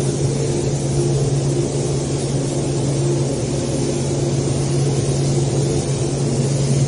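Compressed-air paint spray gun hissing steadily as it sprays primer, over a steady low hum.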